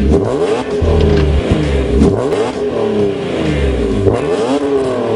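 BMW E46 M3's straight-six revved repeatedly on a stationary car, the exhaust note rising and falling with a series of quick throttle blips.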